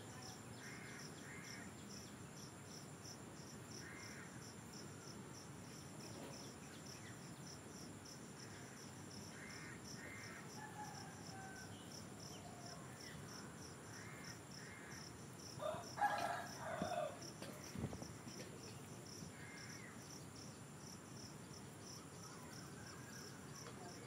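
Faint outdoor ambience of an insect chirping steadily in a high, even rhythm of about three chirps a second, with scattered short bird calls. A louder burst of calls comes about sixteen seconds in.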